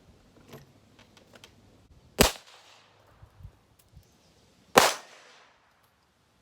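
Two shots from a Heritage Rough Rider .22 single-action revolver, about two and a half seconds apart, each followed by a short echoing tail. A few faint clicks come before the first shot.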